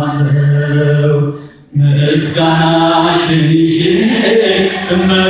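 Voices singing an Ethiopian Orthodox mezmur hymn in a chanting style, with long held notes. The singing breaks off briefly about a second and a half in, then carries on.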